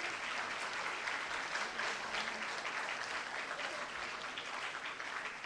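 Audience applauding steadily, dense hand-clapping from a crowd of students.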